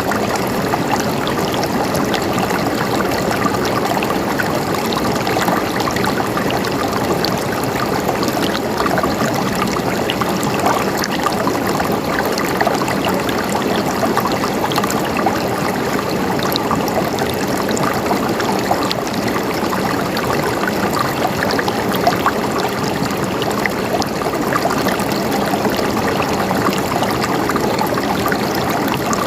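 Running water gurgling and trickling steadily and without pause, flecked with small splashes.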